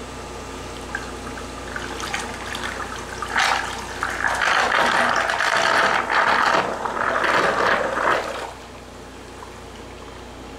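Servodyne laboratory mixer running steadily with a motor hum while its impeller stirs about ten gallons of water. From about two seconds in the water churns and splashes loudly, then drops back to the motor hum shortly before the end.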